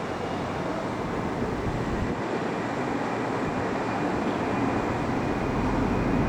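Jet airliner engines heard at a distance: a steady rushing noise with a faint whine that slowly grows louder toward the end.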